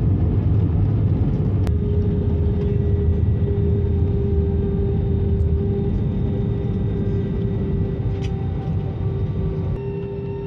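Cabin noise of a jet airliner rolling out on the runway after touchdown, its spoilers raised: a heavy rumble with a steady engine whine, gradually easing as the aircraft slows. One click about two seconds in.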